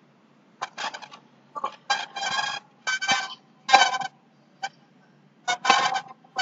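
Broken-up, distorted voice audio from a video-conference call with echo on the line: a string of short buzzy, pitched bursts separated by brief gaps.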